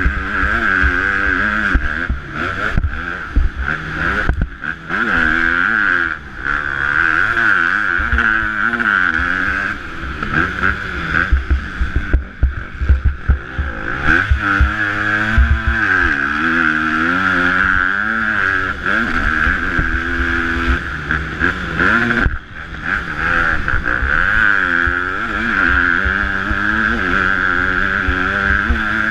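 250cc four-stroke motocross bike engines revving hard, pitch rising and falling over and over as the throttle is opened and closed, with more than one bike heard at times.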